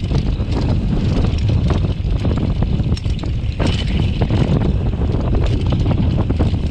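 Downhill mountain bike riding down a dry dirt trail: steady wind rumble on the microphone with tyre noise and frequent sharp clicks and rattles from the bike over the rough ground.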